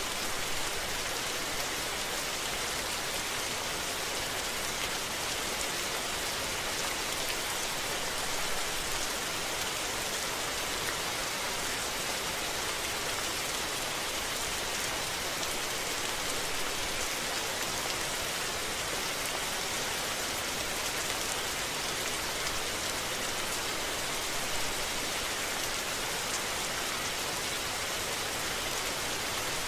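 Steady rain falling, an even hiss of many drops with no single drop or thunderclap standing out.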